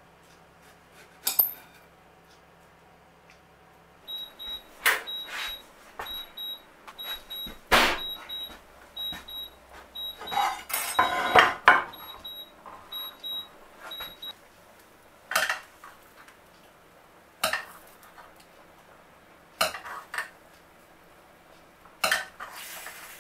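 Kitchen clatter: utensils knocking and clinking on plates and a glass baking dish in sharp, separate strikes. Through the middle, for about ten seconds, a high electronic beep from a kitchen appliance repeats about twice a second.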